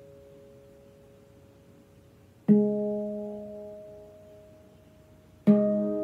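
Handpan notes: a previous note fading away, then the same note struck about two and a half seconds in and again near the end, on a nitrided steel pan and a stainless steel pan in turn. Each strike rings on and fades slowly.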